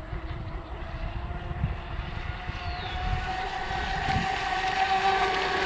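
RC speedboat running flat out on the water: a high motor-and-propeller whine that grows louder and rises slightly in pitch about three seconds in, with gusty wind rumble on the microphone.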